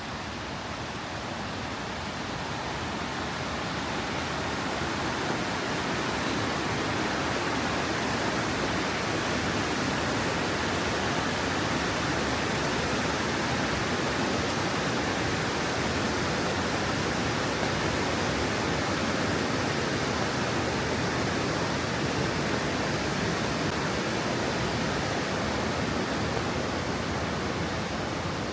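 Waterfall rushing: a steady, dense wash of falling water that grows louder over the first few seconds, then holds.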